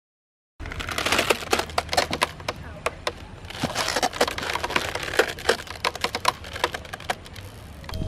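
Rope swing creaking and cracking as it swings, its ropes working against the bamboo frame. It is a rapid, irregular run of sharp clicks and cracks over a low rumble, and it starts about half a second in.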